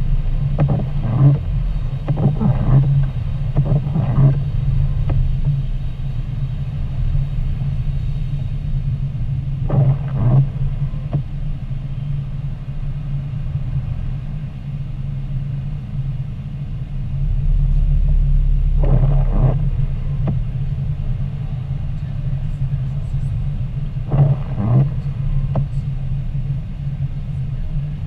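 Steady low rumble of a car's engine and tyres on a wet road, heard from inside the cabin, with a few brief louder swishes every several seconds.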